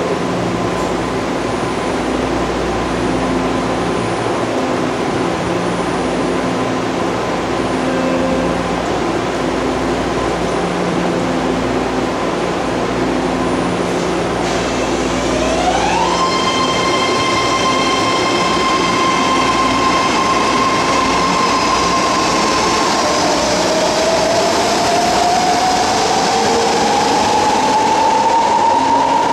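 BART train standing at the platform with a pulsing low hum. About halfway through, its electric traction motors start with a rising whine that holds steady, then dips and climbs again as the train pulls out and gathers speed.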